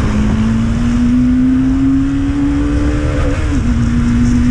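Motorcycle engine running while riding, its note climbing slowly and then dipping a little past three seconds in, over steady low wind and road rumble.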